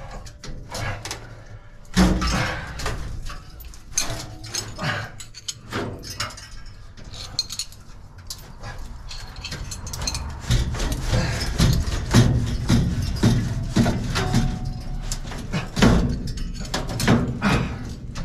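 Irregular metal knocks, clanks and scraping from a New Holland CX5090 combine's sieve section as the corn pre-sieve is worked loose and pulled out, with heavier knocks in the second half.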